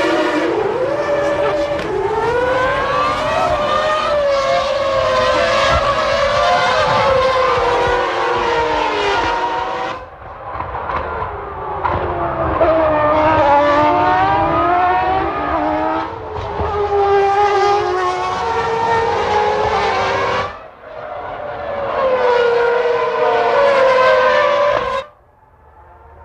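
1996 Formula One race cars' engines at high revs, several cars, the pitch climbing and dropping again and again through gear changes. The sound changes abruptly twice and falls away sharply near the end.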